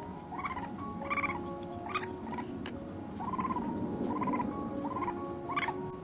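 Many short, arched calls from a group of animals, repeating every half second to a second at several different pitches over a steady background din.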